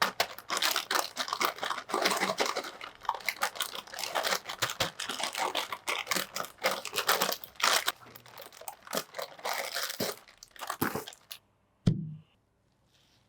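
Plastic chips packet crinkling and tearing as it is handled and opened, with a continuous dense crackle. It stops, and a single sharp knock follows near the end.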